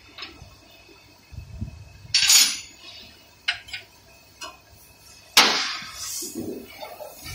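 Hand tools and metal parts clinking and knocking while working on a Toyota Land Cruiser's front differential. A few sharp metal clinks, with the loudest clatter about two seconds in and again past the halfway mark.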